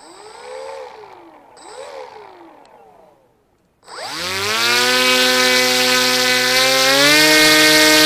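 Electric motor and propeller of an FX-61 flying wing: throttled up and down twice in quick rising-and-falling whines, then, after a short pause, spooling up to a loud, steady whine that steps up in pitch about three seconds later as the throttle is advanced for launch.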